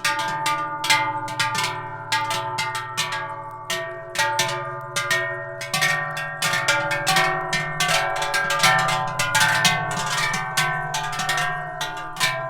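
Many large Swiss cowbells ringing together, their clangs falling in an uneven, overlapping rhythm and each tone ringing on.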